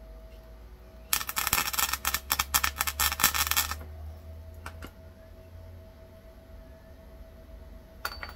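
MIG welder arc crackling for nearly three seconds as a patch panel is tack-welded onto a 1975 VW Beetle's sill, followed by a few short clicks, over a steady low hum.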